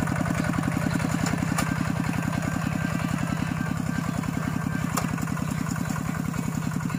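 Single-cylinder diesel engine of a two-wheel walking tractor running steadily, a fast even chugging of about ten beats a second.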